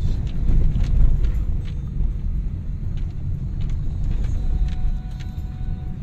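Car driving slowly on an unpaved gravel road, heard inside the cabin: a steady low rumble of tyres and engine, with scattered small ticks and knocks.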